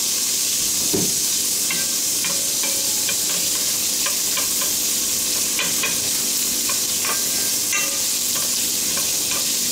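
Guanciale sizzling as it browns in its own fat in a stainless steel pan, stirred with a wooden spoon. A steady high hiss with scattered small clicks and taps from the spoon, and one louder knock about a second in.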